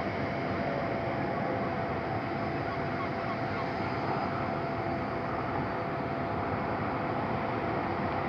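Steady rush of ocean water and wind on the microphone, with a faint steady hum of two tones underneath.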